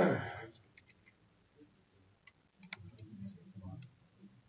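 A few faint, sharp computer mouse clicks, spread through a quiet stretch, after a man's voice trails off at the very start.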